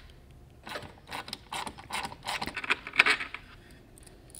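Hand tools and loose metal fasteners clicking and rattling against a plastic door panel as the factory hardware is undone, in irregular bursts that are loudest about three seconds in.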